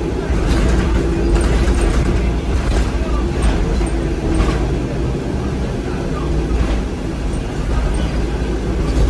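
Cabin sound of a New Flyer DE60LFR diesel-electric hybrid articulated bus under way: a steady low rumble from its Cummins ISL six-cylinder diesel and the road, with a held hum. Scattered short rattles and clicks come from the interior fittings.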